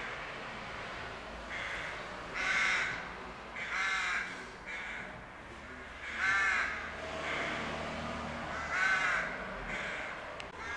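Rooks cawing: four loud, harsh caws spaced a couple of seconds apart, with fainter caws from other rooks in between.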